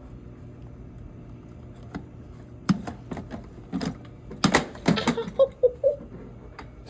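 Hard plastic clicks and knocks as a Shark handheld vacuum is worked onto its self-emptying docking stand, a few single knocks followed by a quick cluster of them about two-thirds of the way through.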